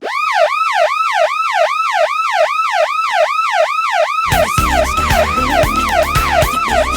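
Washington Capitals 1988-89 goal horn: an electronic siren whooping rapidly up and down, about two and a half cycles a second, signalling a goal. About four seconds in, music with a steady drum beat and bass comes in under the siren, which keeps going.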